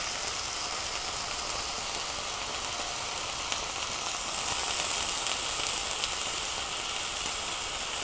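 Food frying in a pan: a steady sizzle with a few faint pops.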